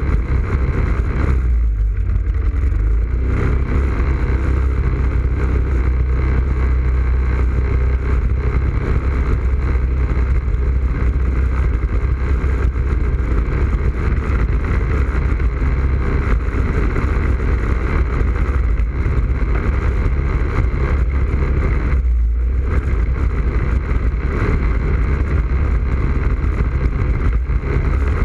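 ATV engine running steadily under way, heard close up from a camera on its front rack. The throttle eases off briefly a couple of seconds in and again about three-quarters of the way through.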